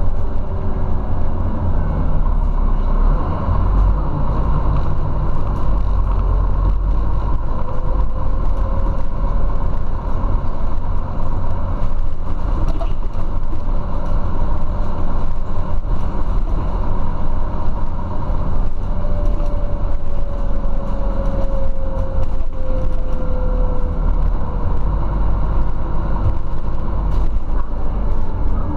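Scania Citywide Euro 6 city bus with a ZF automatic gearbox, heard from inside the passenger cabin while driving: a steady low rumble of engine and road. A faint whine twice slowly slides in pitch, with small interior rattles throughout.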